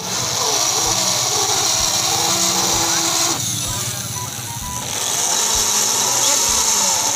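Corded electric drill running, its bit boring into the motorcycle's licence-plate bracket to enlarge a bolt hole. The sound eases a little about halfway through, then rises again.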